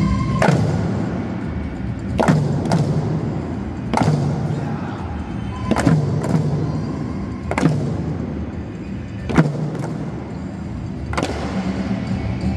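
Eisa dance drums, paranku hand drums and larger handheld drums, struck together in unison over recorded background music. There are about ten hits, one every second and a half to two seconds, with several doubled half a second apart, each ringing on in the large hall.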